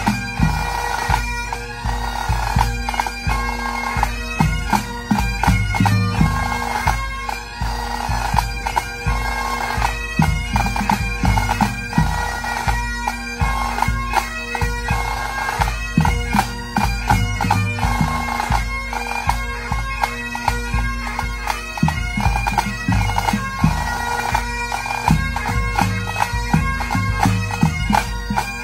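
Pipe band playing: Highland bagpipes sounding their steady drones under the chanter melody, with snare and bass drums beating along throughout.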